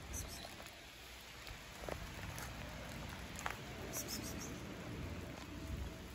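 Light rain pattering steadily, with a few faint ticks.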